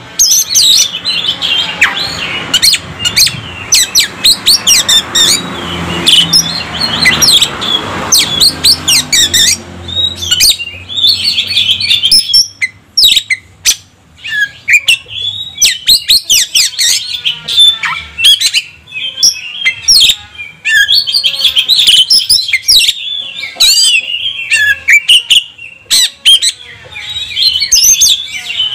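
Oriental magpie-robin (kacer) singing a loud, fast, varied song of sharp whistles, slurs and rapid chattering notes, packed with imitations of other birds' calls. A low rumble sits under the song for about the first ten seconds.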